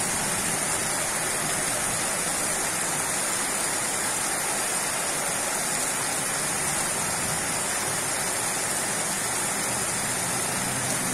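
Steady rain falling from a thunderstorm onto a paved street, an even hiss.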